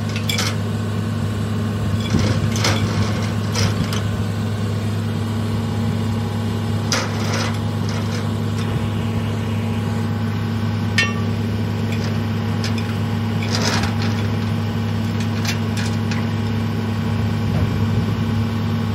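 Excavator engine idling steadily, with scattered sharp metallic clinks and clanks of a steel lifting chain being hooked onto a blade frame.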